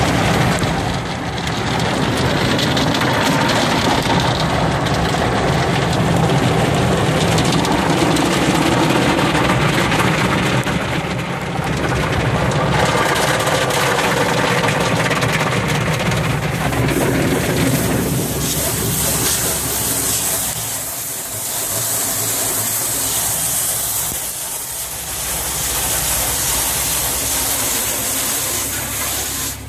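Automatic car wash heard from inside the vehicle's cabin: water spray beating on the windshield and glass over the wash machinery, a loud steady rush. About eighteen seconds in it turns hissier and thinner.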